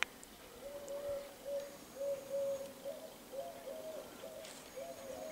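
A pigeon cooing: a run of short, soft, low coos repeated in phrases. A sharp click sounds right at the start.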